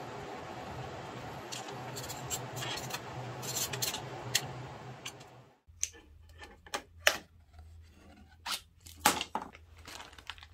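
A steady hiss with a low hum and a few small clicks for the first five seconds or so. After a sudden cut come sharp, separate clicks and crinkles from a plastic zip-top bag and a stiff plastic strip being handled, loudest twice in the second half.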